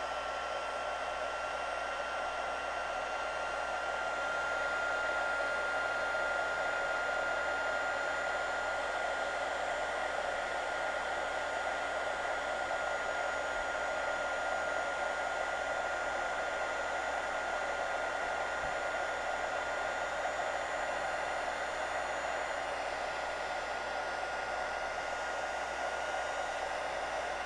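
Handheld heat embossing gun running steadily: a constant rush of hot air with a thin steady whine from its fan motor, melting black embossing powder on stamped cardstock.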